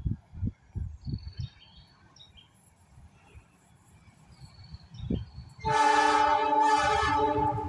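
A diesel locomotive's horn sounds one long blast, a chord of several notes, starting about five and a half seconds in as the train approaches. Before it, low gusts of wind thump on the microphone.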